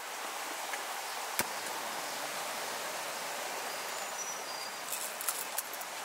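Steady outdoor hiss, with one sharp click about a second and a half in and a few small crackles and faint high chirps near the end.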